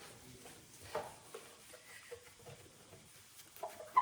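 Faint rag scrubbing on a refrigerator shelf coated with dish-soap spray and baking soda, with a few soft knocks about a second in.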